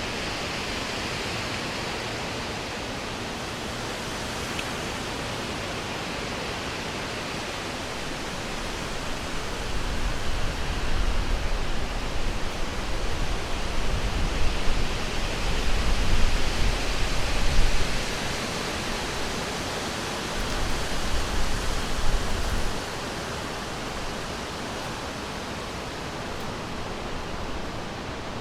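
Wind blowing through forest trees: a steady rushing hiss, swelling into stronger gusts with a low rumble about a third of the way in and again a little past two-thirds.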